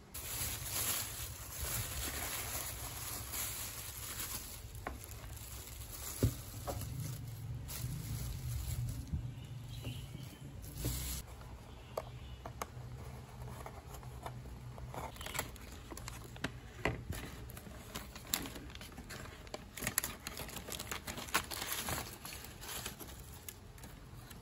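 Takeaway food packaging handled close up: rustling and crinkling of a paper wrapper as a molded-pulp clamshell food box is pried open, with many small scattered clicks and crackles over a low steady hum.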